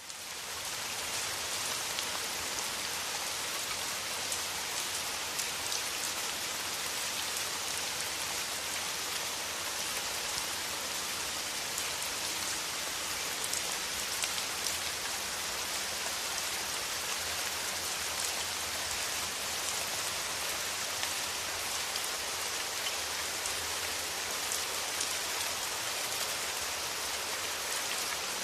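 Steady rain: a dense, even hiss of falling rain with many individual drops pattering on a surface, fading in at the start and then holding steady.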